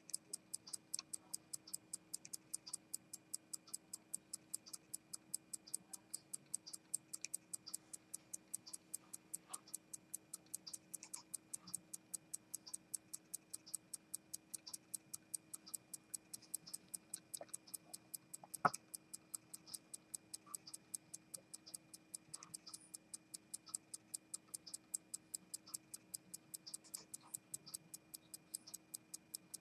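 Longines A-9 pocket watch movement ticking in a rapid, even rhythm. A single sharper click stands out a little past the middle.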